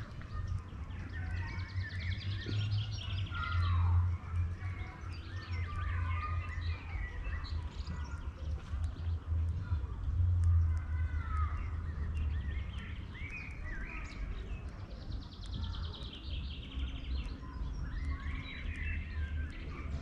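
Several songbirds singing and calling around the nest, including two fast trills, one a few seconds in and one near the end, over a steady low rumble.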